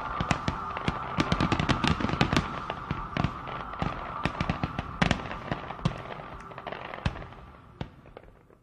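Fireworks going off: a dense, rapid run of sharp cracks and pops over a continuous crackling hiss. The cracks thin out and the sound fades away near the end.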